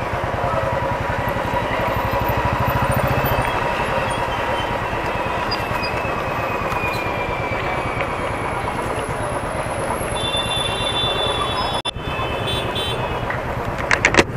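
Motorcycle engine idling steadily while stopped at a red light in heavy traffic, with the hum of surrounding vehicles.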